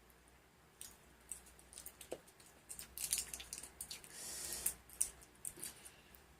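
Quiet, close-up scattered clicks and crackles, with a short rustle about four seconds in, from handling snacks and their plastic packaging.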